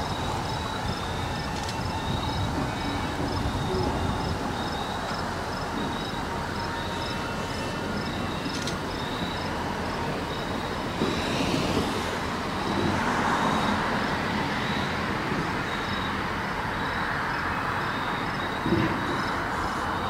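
Diesel locomotive running at low speed as it approaches pulling a train of flatcars: a steady engine rumble with wheel noise. A faint high ticking repeats about twice a second, and a short knock comes near the end.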